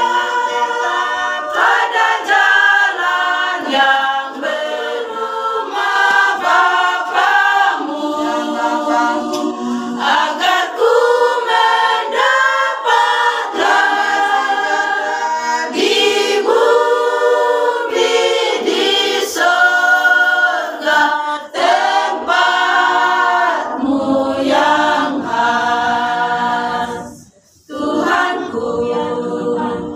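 Women's choir singing a cappella, many voices together with no instruments, with a brief break between phrases near the end.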